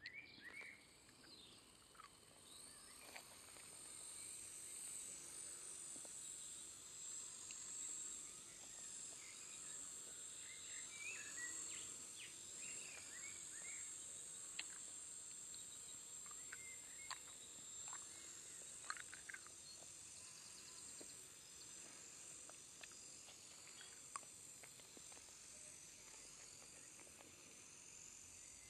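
Walkera 4G6S flybarless micro electric helicopter's motor and rotor running with a high, thin whine. It grows louder over the first several seconds as the rotor spools up and the heli lifts off, then holds steady while it hovers and flies.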